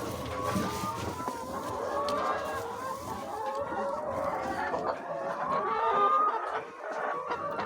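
A flock of chickens clucking, many short calls overlapping throughout.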